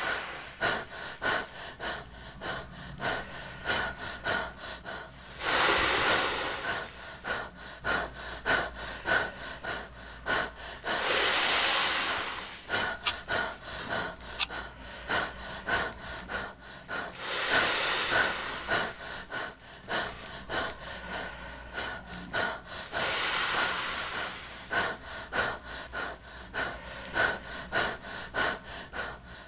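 A man blowing hard into a large plastic bag by mouth: five long, loud exhalations about every six seconds, with many short, quick gasping breaths between them.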